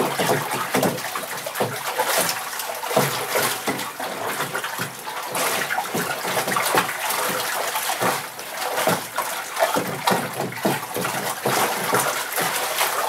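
Salt water sloshing and splashing in a bucket as a wooden stir stick churns it, stirring 7 pounds of salt into 7 gallons of water to dissolve it for a tanning pickle.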